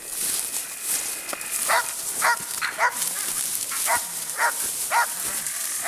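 Young Russo-European Laika giving voice at game: six short, sharp barks in two runs of three, about half a second apart.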